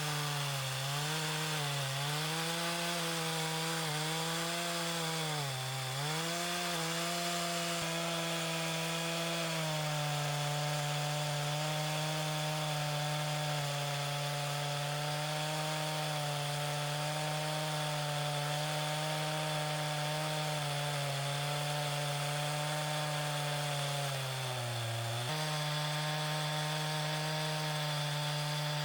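Chainsaw running steadily while cutting into a log to hollow it out. Its pitch dips briefly several times in the first six seconds and again about twenty-four seconds in, as the chain bogs under load.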